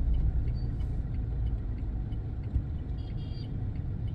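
Steady low rumble of the campervan's engine and tyres on the road, heard from inside the cabin while driving.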